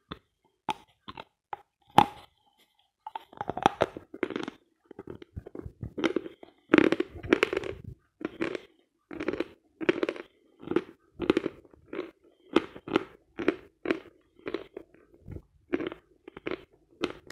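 Biting into a dry stick of Vatutin chalk: a few sharp separate crunches, the loudest about two seconds in. Then steady crunchy chewing of the dry chalk, about one and a half chews a second, picked up by a small microphone held against the jaw.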